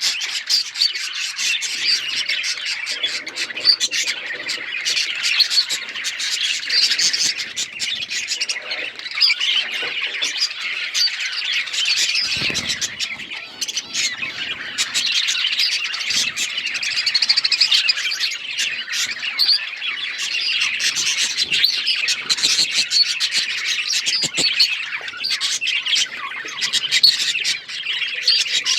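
A flock of budgerigars chattering and chirping without a break, many high calls overlapping.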